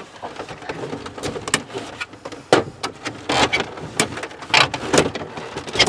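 Hard plastic center console of a 1996 Ford Mustang being worked loose and lifted out, giving an irregular run of scrapes, clicks and knocks of plastic on plastic, louder in the second half.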